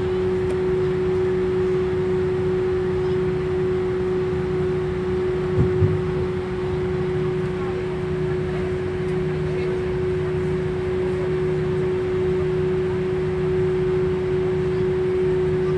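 Jet airliner cabin noise before takeoff: a steady drone of engines and air conditioning with one held, unchanging tone over a low rumble. A couple of brief knocks about six seconds in.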